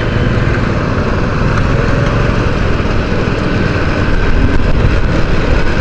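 Motorcycle running along the road in traffic, with wind rushing over the microphone: a steady, dense engine-and-wind noise.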